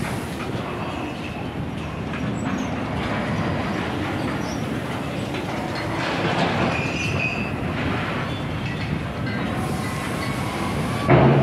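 Steady mechanical rumble of freight rail wagons and crane machinery, with brief high metallic squeals now and then and one loud clank just before the end.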